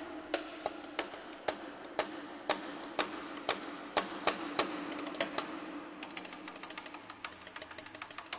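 Solo percussion played with sticks: light, dry wooden clicks and taps at an irregular pace of a few per second, coming faster and closer together in the second half.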